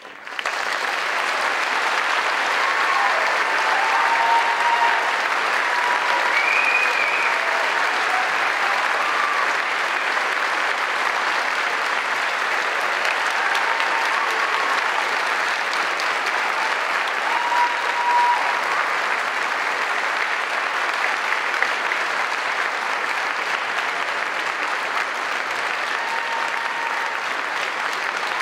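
Concert audience applauding, breaking out suddenly from silence and then continuing as steady, sustained clapping.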